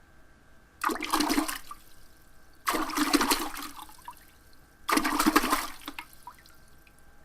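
Lake waves splashing against the pier, three times about two seconds apart, each splash starting sharply and washing away over about a second.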